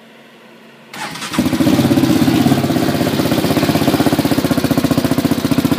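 Yamaha Raptor 700R single-cylinder four-stroke engine started on its electric starter: a brief crank about a second in, then it catches and settles into a steady, rapidly pulsing idle.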